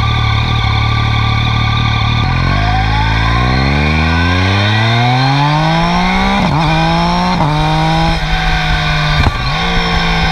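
Yamaha FZ-09's three-cylinder engine heard close up while ridden: running steadily, then accelerating hard from about two seconds in with its pitch climbing, followed by several quick upshifts in the second half where the pitch drops sharply and picks up again before it settles to a steady cruise.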